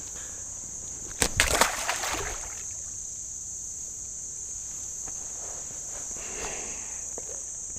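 Steady high-pitched insect chorus, with a short burst of scuffling noise a little over a second in.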